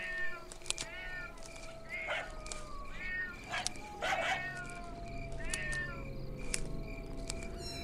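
A series of short, wavering animal cries, about seven of them spread unevenly, over a steady low drone.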